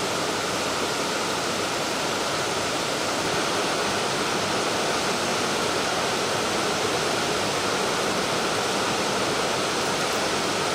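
Steady rushing of a flowing river, an even unbroken wash of water noise.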